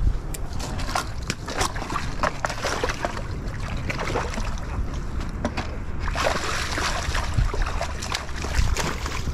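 Shallow water lapping and sloshing over shoreline rocks, with wind buffeting the microphone and many short, irregular clicks and knocks throughout.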